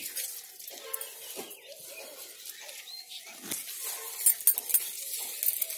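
Leaves and twigs of a lemon tree rustling and crackling as the branches are handled, with a cluster of sharp clicks about four to five seconds in.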